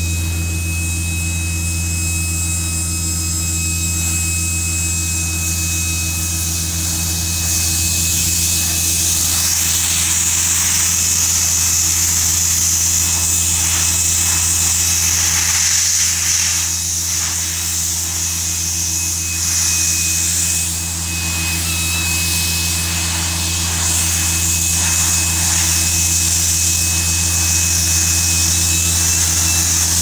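Bitumen distributor's engine and pump running steadily, with the hiss of a hand spray lance spraying MC30 prime coat onto the road base; the hiss grows louder a few seconds in.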